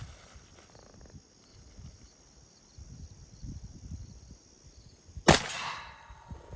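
A single shot from an AKM rifle (7.62×39 mm) about five seconds in: one sharp crack with a short echo trailing off.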